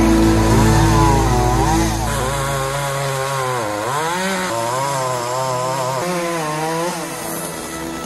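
Gas chainsaw running and cutting into brush, its pitch rising and falling with the throttle and the load, with a sharp dip about four seconds in as the chain bites.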